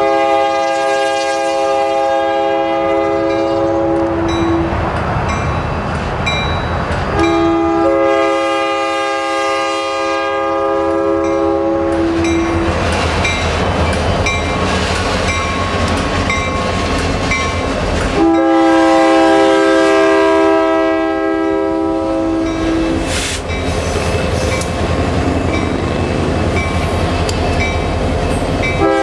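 Diesel locomotive multi-chime air horn sounding three long blasts, with another starting right at the end, over the steady rumble of a freight train passing close by: locomotives going by about midway, then open-top hopper cars rolling past with wheel clatter on the rails.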